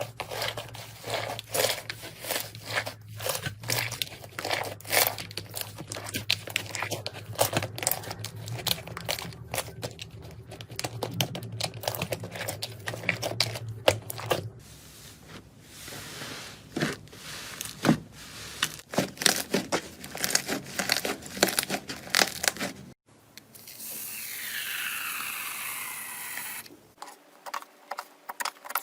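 Slime being squeezed, stretched and poked by hand, with dense sticky crackling, popping and tearing clicks, changing character at a couple of abrupt cuts. A few seconds of steady hiss with falling tones come near the end.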